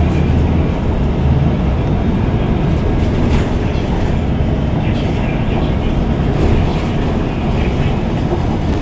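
Steady low rumble of a city vehicle in motion, heard from inside its cabin, with a few light rattles.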